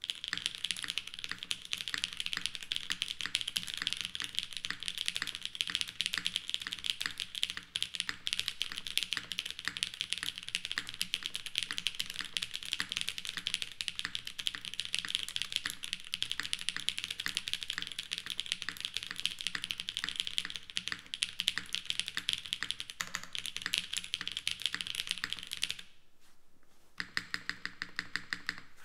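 Typing on a Smith+Rune Iron165 mechanical keyboard with BCP switches on an FR4 plate, gasket-mounted in a polycarbonate top and aluminium bottom case. The keys are struck in a fast, continuous stream of clacks. Near the end comes a short pause, then a run of quick, evenly spaced keystrokes.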